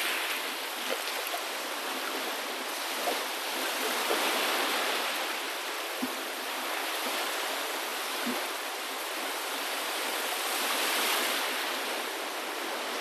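Running water: a steady rushing wash that swells and eases gently, with a couple of faint ticks or drips about six and eight seconds in.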